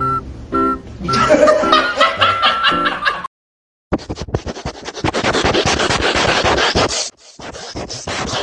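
Background music with short held notes, with some laughter. After a brief break of silence about three seconds in, a dense crackly noise full of rapid clicks.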